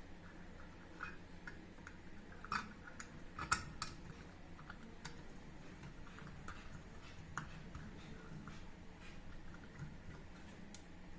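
Faint, irregular light clicks and taps over a low steady background hum, with a few louder clicks about two and a half and three and a half seconds in.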